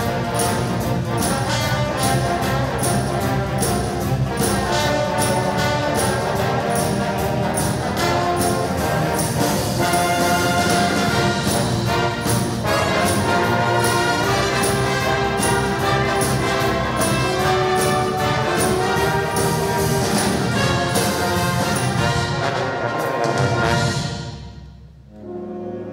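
Symphonic wind band playing a medley of 1970s pop hits: brass and clarinets over a steady percussion beat. About two seconds before the end the band breaks off, and a quieter held passage begins.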